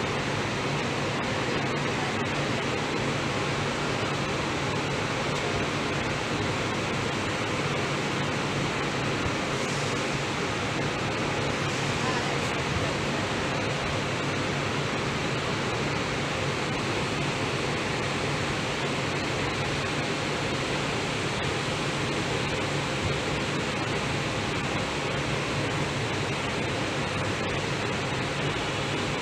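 Steady rushing noise with a constant low hum from a stationary monorail car's air-conditioning and ventilation running.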